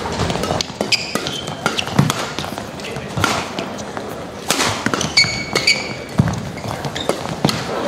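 Badminton rackets striking the shuttlecock in a fast doubles rally, about one sharp hit a second. Short high squeaks of court shoes come between the shots.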